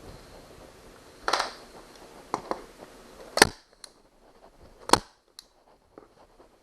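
Harbor Freight FastenPro manual 3-way staple gun firing staples, two sharp snaps about a second and a half apart, each followed by a faint tick. Before them come a brief rustle and a few light clicks.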